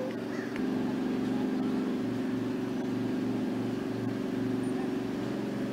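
An engine running steadily, starting about half a second in, with a slow regular throb.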